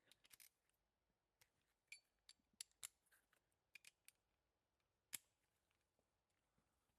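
Faint, irregular small clicks and taps of hand tools being handled during work on a car's differential, the sharpest about five seconds in.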